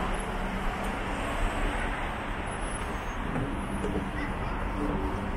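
Steady city road traffic noise, a continuous hum of vehicles.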